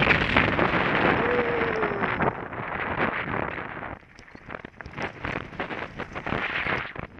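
Downhill mountain bike ridden fast on a dirt trail, heard from a helmet camera: a loud rush of wind on the microphone and tyres on loose dirt, with a brief falling tone about a second in. About four seconds in the rush drops and the bike rattles and clatters over rocks.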